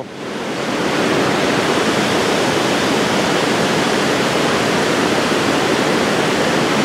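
Water pouring over a low-head dam spillway and churning below it: a steady rush of water noise, swelling up over the first second and then holding even.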